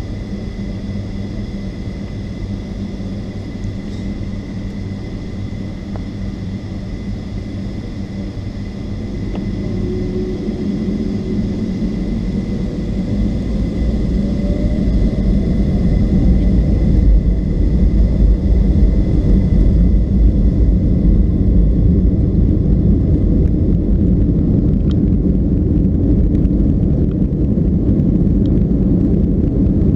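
Cabin noise beside the wing of a Boeing 757-200 as its Rolls-Royce RB211 engines spool up to takeoff thrust. A rising whine and a growing low rumble build from about nine seconds in, then hold loud and steady as the takeoff roll gets under way.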